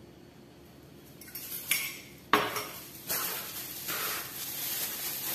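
A hand mixing a kibe mixture of soaked bulgur wheat, ground beef and raw egg in a plastic bowl. A light tap and then a sharp knock come about two seconds in, followed by repeated swishes of the mixture being worked, about one a second.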